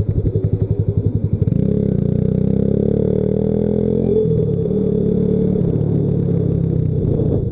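Motorcycle engine ticking over with an even low chug, then pulling away about a second and a half in, its pitch rising. About four seconds in the pitch falls back sharply, and the engine then runs steadily as the bike rides on.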